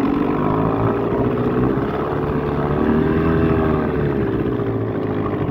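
1987 Evinrude 8 HP two-stroke twin-cylinder outboard motor running in reverse gear, its note rising a little and easing back about halfway through.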